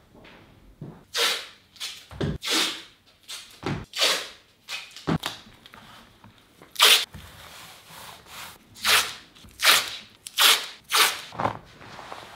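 Cloth being handled: a large sheet of white fabric spread and smoothed out on a work table, giving about a dozen short, irregular rustling swishes.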